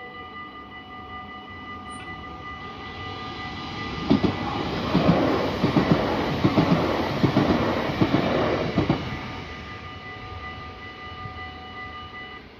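Electronic level-crossing bells ring steadily as an NS Sprinter Nieuwe Generatie electric multiple unit passes. The train is loudest from about four to nine seconds in, its wheels clattering rhythmically, then fades. The bells cut off just before the end.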